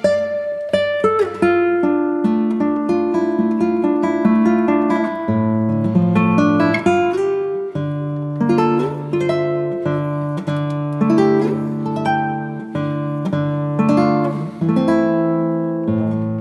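Background music played on acoustic guitar, a melody of plucked notes over a bass line.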